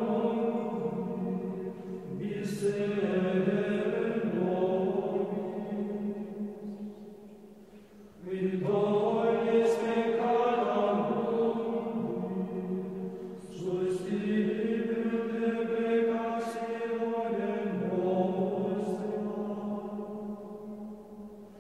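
Slow vocal chant sung in long held phrases over a steady low note, breaking off briefly every five or six seconds between phrases.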